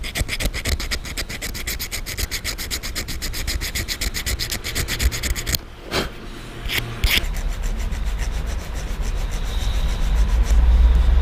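A small flat file being drawn back and forth in quick, even strokes, several a second, over a tiny metal contact plate from an LED bicycle tail light, scraping off rust and corrosion. The filing stops a little past halfway, followed by a few clicks and a low rumble.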